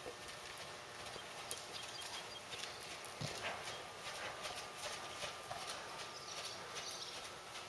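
Hoofbeats of a ridden Canadian Warmblood on the dirt footing of an indoor arena: a steady run of short, soft strikes as the horse walks and trots.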